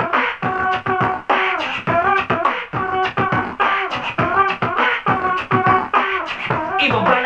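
Live-looped beatbox: layered mouth percussion of quick kick-and-snare hits repeating over held hummed tones, played back from a loop station while the beatboxer adds more layers.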